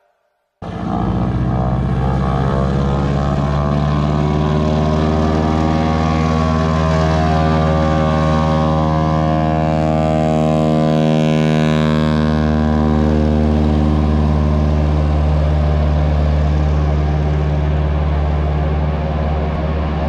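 Floatplane's propeller engine, a steady loud drone, as the plane skims across the river at speed trailing spray. It starts abruptly about half a second in and is strongest through the middle.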